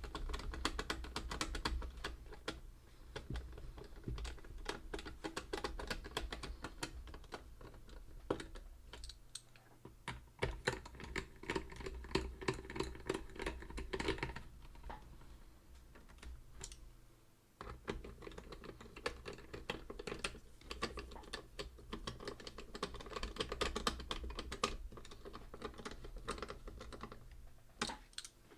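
A steady run of small, quick clicks and taps, with short pauses about a third of the way through and again just past halfway, over a low steady hum.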